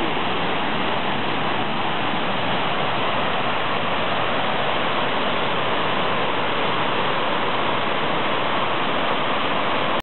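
Waterfall cascading over tiers of rock into a pool: a steady, loud rush of falling water.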